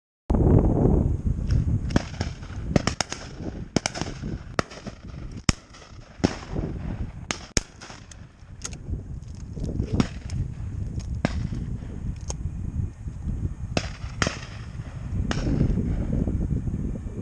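Shotgun shots on a driven pheasant shoot: many sharp reports at irregular intervals, some close and loud, others fainter and further off, over a low rumble.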